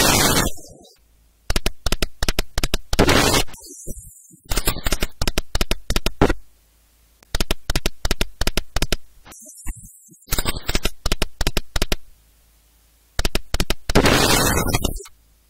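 Video slot machine's reel-spin sound effects: repeated spins, each about two seconds of rapid clicking as the reels turn and stop, with short pauses between spins.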